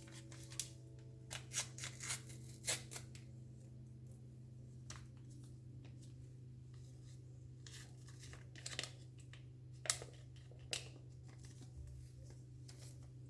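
Quiet handling sounds: scattered sharp clicks and scrapes, a cluster in the first few seconds and a few more near the end, over a low steady hum.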